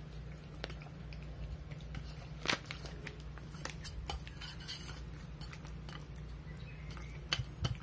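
Hands mixing raw duck pieces in a stainless steel bowl of coating mix: soft wet squishing with scattered light clicks of meat and fingers against the bowl, the sharpest about two and a half seconds in and a few more near the end, over a steady low hum.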